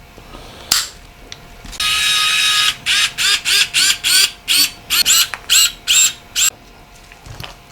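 Small mechanical sounds from fitting a part into a Nokia 8910i's phone body. There is a single click, then a brief rasp about two seconds in, followed by about a dozen quick, squeaky ratcheting strokes at roughly three a second.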